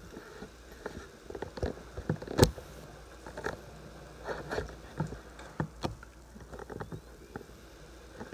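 Handling noise: irregular light clicks and knocks, with one louder knock about two and a half seconds in.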